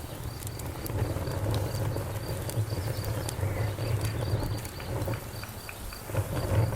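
Wood campfire crackling with scattered sharp pops over a low steady rumble, while crickets chirp in an even, repeating pulse.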